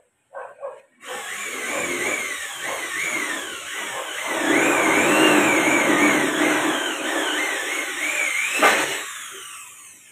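Electric drill boring into the door frame, its motor whine wavering up and down in pitch under load for about eight seconds. A sharp knock comes just before it winds down near the end.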